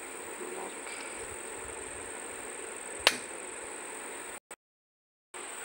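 A single sharp plastic click about three seconds in, the lid of a wireless earbuds charging case snapping open, over a steady high-pitched hiss. The sound cuts out completely for about a second near the end.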